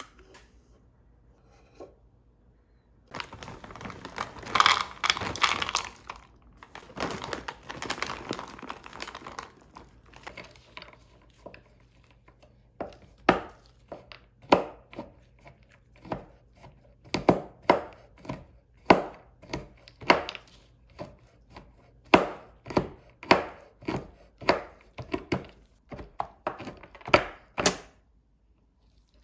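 Chef's knife chopping couverture chocolate discs on a wooden cutting board: a string of sharp crunching chops, a little more than one a second, from about a quarter of the way in until near the end. Before them comes several seconds of rustling and scraping.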